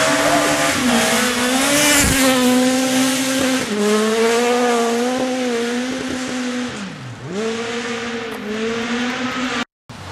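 Honda Civic rally car's engine revving hard through a gravel bend, its pitch rising and falling with gear changes and a deep drop and climb about two thirds of the way in, growing fainter as the car pulls away. The sound cuts out for a moment near the end.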